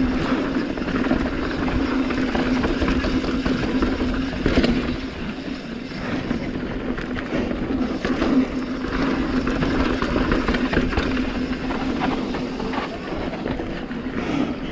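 Mountain bike riding fast down a dirt singletrack, heard from a camera on the rider: continuous tyre and wind noise with a steady hum, and a few sharp clacks as the bike hits bumps.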